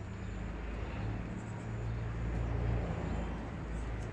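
A motor vehicle's engine passing by: a low, steady engine hum that grows louder, peaks about two and a half seconds in, then fades.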